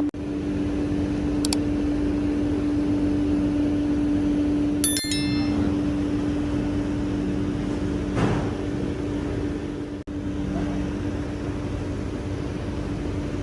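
Steady hum of a workshop machine motor, with a single ringing metallic clink about five seconds in.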